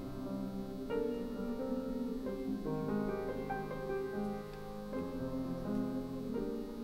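Grand piano playing a flowing passage of chords and broken-chord figures, each newly struck note ringing on under the next.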